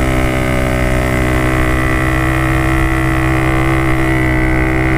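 Yamaha RX-King two-stroke single-cylinder motorcycle engine running at steady revs while riding along, its note holding one pitch.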